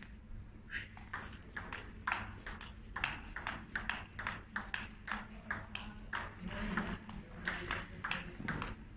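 Table tennis rally: the ball clicking off the rackets and bouncing on the table, about two hits a second. The rally starts about a second in and stops near the end.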